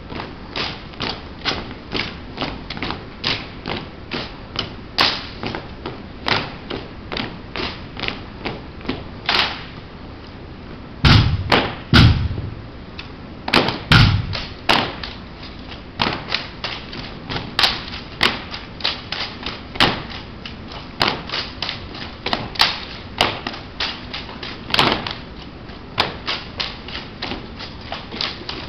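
Silent rifle drill: a steady run of sharp clicks and slaps from marching boots and hands striking rifles, about two or three a second at first, then more irregular. A few heavier thumps of rifle butts striking the hard floor come about eleven to fourteen seconds in.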